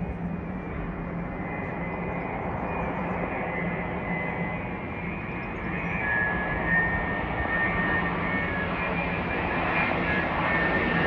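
Boeing 787-9 Dreamliner on final approach, its Rolls-Royce Trent 1000 turbofan engines growing steadily louder as it nears. A high whine of several steady tones comes up over the jet noise from about halfway.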